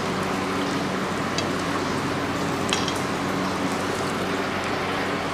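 Eating rice by hand: a few faint clicks and smacks of fingers working rice on a plate and of chewing, over a steady hiss with a low hum.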